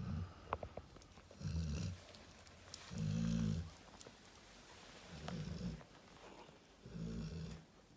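Cane Corso snoring while asleep: four low snores, each under a second and about a second and a half apart, the loudest about three seconds in. A few faint clicks come in the first second.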